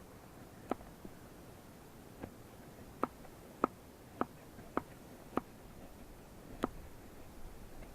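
Fixed-blade knife shaving dead cedar, giving about eight short, sharp ticks as the blade cuts through the dry wood, irregularly spaced a half-second to a second apart.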